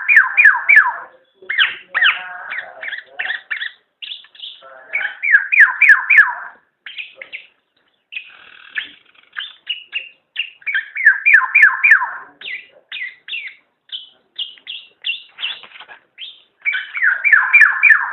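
Black-naped oriole (kepodang) calling: bursts of rapid, downward-slurred notes repeated every few seconds, with scattered single notes between the bursts.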